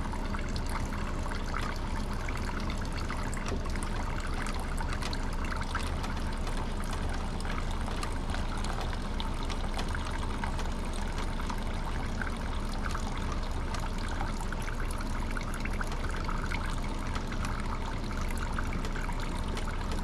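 Gas-diluted oil draining in a thin, steady stream from the crankcase drain of a 301cc Honda-clone OHV engine into a nearly full drain pan, a continuous trickle into the pooled liquid. The crankcase is flooded with fuel.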